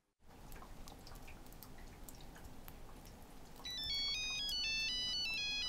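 Mobile phone ringing for an incoming call: a high electronic ringtone melody of quick stepping notes that starts about two-thirds of the way in, over faint background noise.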